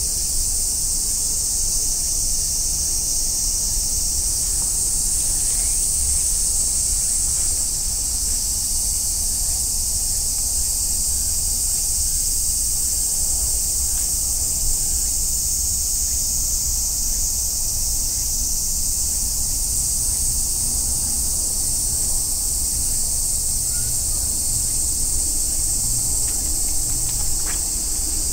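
A dense, steady shrill chorus of cicadas, swelling and easing slightly, with a low rumble underneath.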